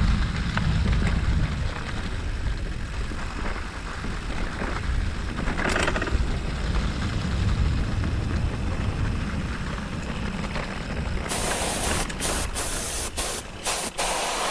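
Mountain bike riding along a leaf-covered path: wind rumbling on the microphone over the noise of the tyres rolling. About three-quarters of the way through, loud bursts of hiss cut in and out several times.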